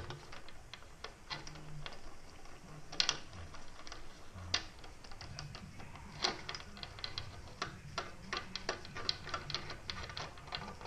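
Irregular metallic clicks and ticks from a bottom bracket press tool being loosened and wound back off after pressing in a BB30 adapter. The clicks come in quicker runs in the second half.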